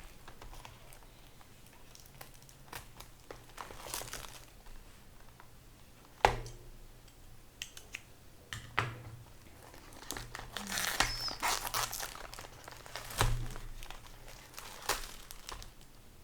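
A small product box being opened by hand: packaging crinkling, with scattered sharp knocks and taps as the box is handled, the loudest about six seconds in and again near thirteen seconds, and a longer stretch of crinkling between about ten and twelve seconds.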